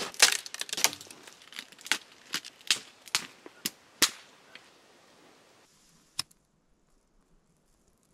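Dry dead twigs and branches snapping as they are broken by hand: about ten sharp cracks in the first four seconds, then a single snap about six seconds in.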